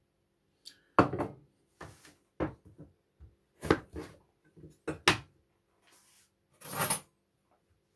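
A large chef's knife cutting through a hard, peeled butternut squash on a plastic cutting board: a string of sharp knocks as the blade works through the dense flesh and strikes the board, then a short scraping sound near the end.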